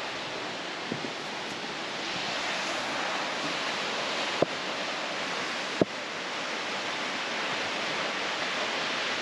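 Steady rushing of a waterfall across a gorge, with two short sharp knocks about four and a half and six seconds in.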